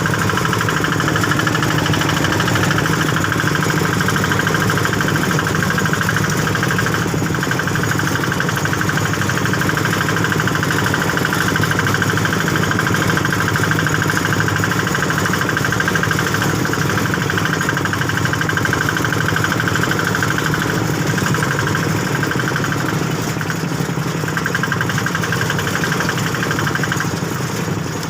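A small engine running steadily at an even speed, with a dense, regular beat.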